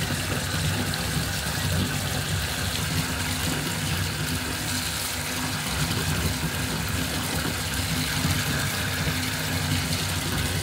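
Bathtub faucet running: a steady stream of water pouring from the spout into a tub of bathwater and bubble-bath foam, with a low steady hum underneath.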